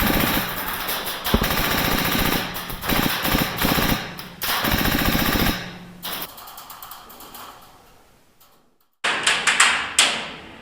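Airsoft gun firing long full-auto bursts, a rapid rattle of shots broken by short pauses. The bursts die away, and after a brief gap a string of separate sharp taps follows near the end.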